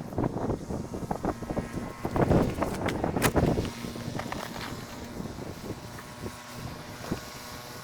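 Snow shovel digging and scraping through a snowbank: irregular crunches and scrapes, busiest in the first half, with a sharp knock a little over three seconds in.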